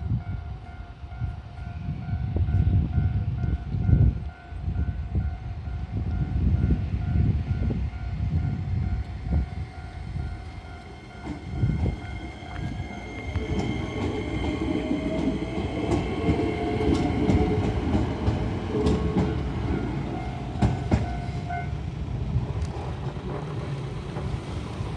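A Shizuoka Railway train passes over a Japanese level crossing with heavy wheel rumble while the crossing's electronic warning bell rings in a steady repeating pattern. A rising whine comes in about halfway through, and the bell stops about 21 seconds in.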